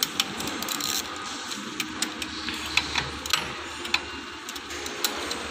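Sharp metallic clicks, irregularly spaced, from a click-type torque wrench being worked on a timing-belt tensioner bolt as it is tightened to torque.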